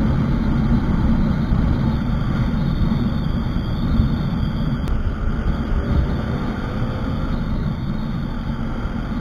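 Motorcycle riding at about 60 km/h, heard as a steady rush of wind buffeting the microphone, with engine and tyre noise underneath.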